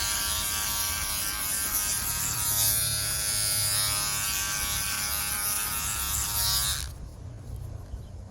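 Philips Norelco OneBlade electric trimmer buzzing steadily as it cuts beard stubble, stopping abruptly about seven seconds in.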